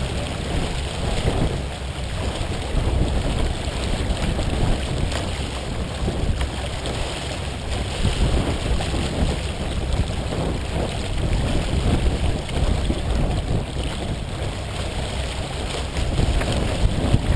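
Rush and splash of water along the hull of a heeled Columbia 30 sailboat under sail, mixed with wind buffeting the microphone, surging unevenly.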